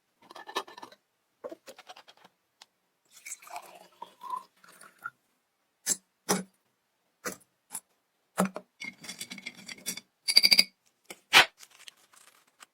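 A series of separate sharp clicks and taps with a few brief scrapes, with dead-silent gaps between them. They fit hand tools working on metal.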